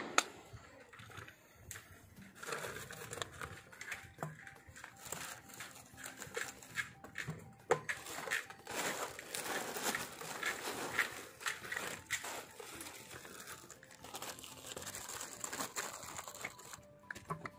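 Handling noise from the plastic parts of a fiber optic dome splice closure: irregular crinkling and rustling of plastic, with scattered sharp clicks and knocks.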